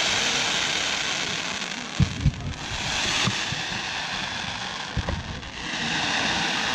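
Fireworks display: low booms of shells bursting, two close together about two seconds in, another a second later and a small cluster around five seconds, over rising and falling waves of crackling hiss from the bursts.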